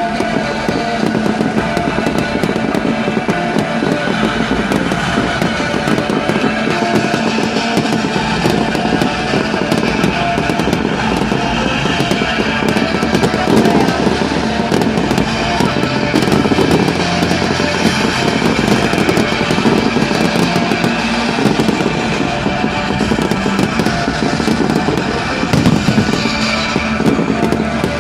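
Fireworks going off continuously, many quick bangs and crackles, over music.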